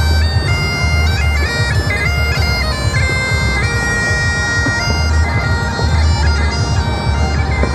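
Bagpipes playing a melody, the chanter stepping from note to note over a continuous low drone.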